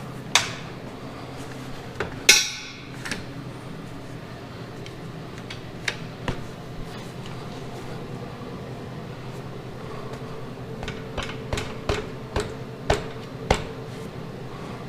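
Steel parts clanking and a few sharp taps on steel plate, scattered unevenly. The loudest comes about two seconds in and rings briefly, with a quick run of taps near the end, as the pieces are clamped and knocked into position. A steady low hum runs underneath.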